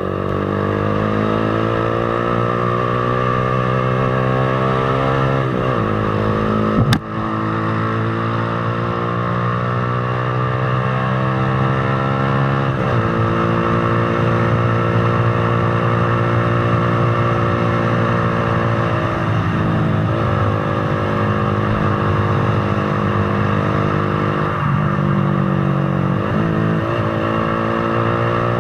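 Motorcycle engine pulling up through the gears: its pitch rises, then drops at upshifts about 6 and 13 seconds in, and after that it holds a steady cruise with a few brief throttle dips. A single sharp click is heard about 7 seconds in.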